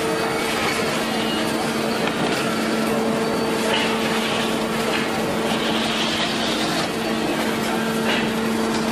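Steady machinery hum with a constant low tone under an even haze of noise, with brief scraping as a large glued-up wood panel is slid out of the press.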